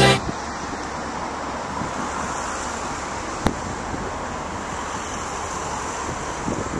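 Steady road traffic noise with wind on the microphone, and one sharp click about three and a half seconds in.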